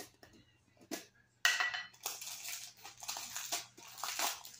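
Small plastic jar of crunchy slime full of tiny foam beads: two light clicks as the lid comes off, then from about a second and a half in, dense, uneven crackling and crunching as fingers press into the slime.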